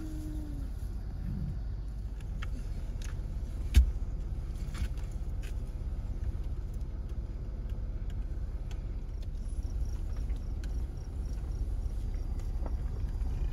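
Steady low rumble of a vehicle heard from inside its cabin, with one sharp knock about four seconds in and a few faint clicks.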